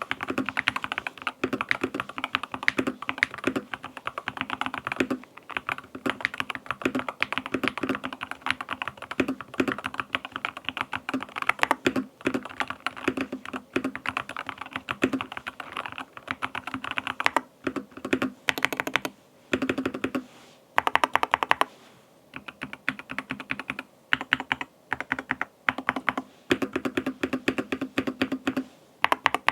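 Keychron K2 HE keyboard with Hall-effect magnetic switches being typed on fast: a dense run of key clacks with short pauses, and a few tighter bursts of very quick presses past the middle.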